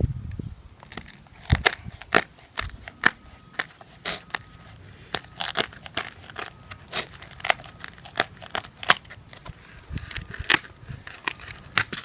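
Irregular sharp crackling clicks, a few dozen of them, from a foam pool noodle and a box knife being handled.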